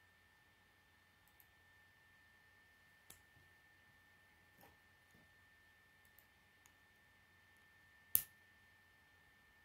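K'nex plastic pieces clicking as they are fitted together by hand: a few faint clicks, then one sharp snap about eight seconds in as a connector is pressed home.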